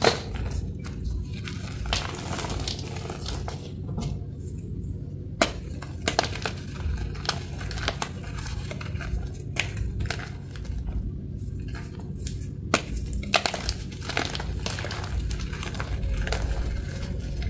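Compressed gym chalk squeezed and crumbled by hand: irregular soft crunches and crackles as the packed chalk breaks apart.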